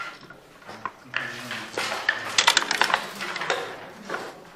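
Backgammon dice and checkers clicking on the board during play: a few scattered clicks, then a quick clatter of many clicks a little past halfway.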